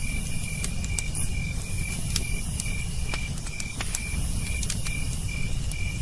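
Night ambience of crickets chirping in a steady, evenly pulsed rhythm over a shrill insect hiss that swells and fades. Scattered sharp crackles, as from a campfire, sound now and then.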